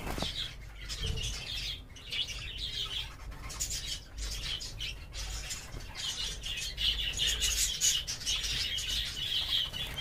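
Budgerigars chirping and chattering, getting busier from about six seconds in.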